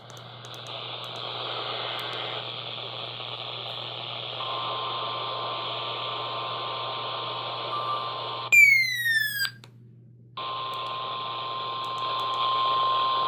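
Weather radio static with a steady alert tone, the NOAA Weather Radio 1050 Hz warning alarm tone that comes before a warning message. About eight and a half seconds in, a loud falling electronic chirp lasts about a second and is followed by a second of silence. Then the static and the tone come back, slightly louder near the end.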